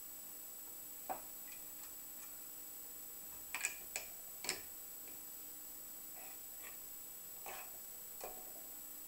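Small clicks and taps of paintball marker parts being handled and fitted together by hand. Short, sharp clicks, spaced irregularly, with a quick cluster of three or four a little past the middle.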